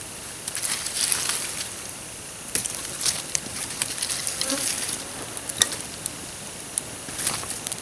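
A campfire burning down to coals, with irregular crackles and sharp clicks over a high hiss, and rustling as wood and coals are shifted about to make a platform for a pot.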